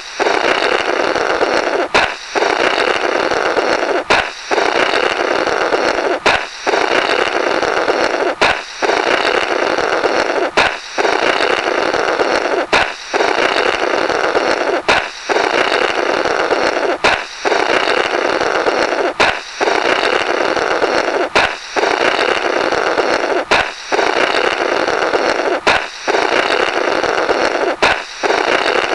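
Comical 'blorrrt' sound effect on a loop: a balloon pop followed by blowing through the burst balloon's remnants, repeating about every two seconds with a brief break and a sharp click at each restart.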